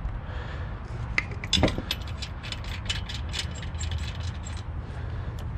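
Hand ratchet wrench clicking in a quick run of ticks while lug nuts are run onto a van wheel being refitted.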